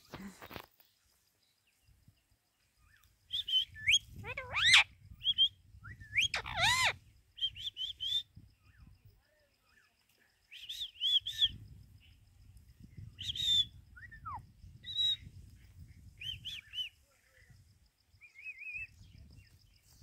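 Rose-ringed parakeet (Indian ringneck) calling: short, sharp chirps and whistles in little clusters with pauses between, the loudest being two longer whistles that sweep up and down about four to seven seconds in.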